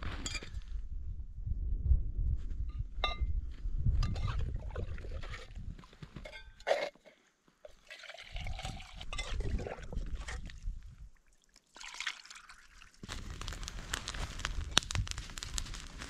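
A mug dipped into a hole in the ice, scooping and pouring water, with clinks of the mugs. Near the end, a small stick campfire crackles.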